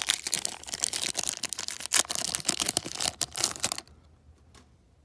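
Foil trading-card pack wrapper crinkling and tearing as it is pulled open by hand: a dense run of crackles that stops about four seconds in.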